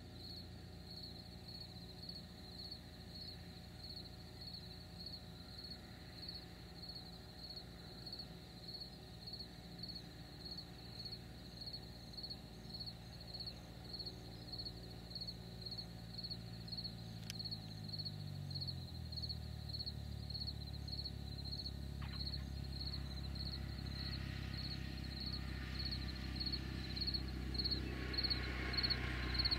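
Cessna 172's piston engine and propeller droning on approach and landing, its pitch dropping about two-thirds of the way through and growing louder near the end as the plane rolls closer. Crickets chirp steadily throughout, about two pulses a second.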